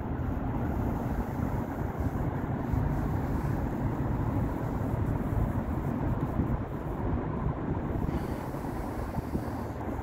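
Steady low rumble of distant city and river traffic, with no separate events standing out.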